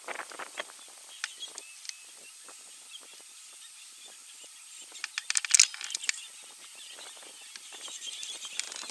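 Dry brush crackling and twigs snapping as African elephants move and feed in the scrub, in scattered sharp clicks with a dense burst of loud snaps about five seconds in. Faint bird calls are heard behind.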